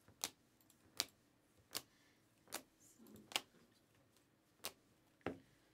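Hard plastic card holders clicking against each other as a stack of trading cards is flipped through, one card moved to the back at a time: seven sharp clicks, roughly one every three-quarters of a second.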